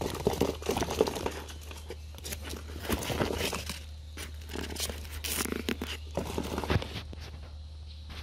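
Cardboard box and long grass leaves being handled at close range: irregular rustling, crinkling and scraping with small knocks against the box.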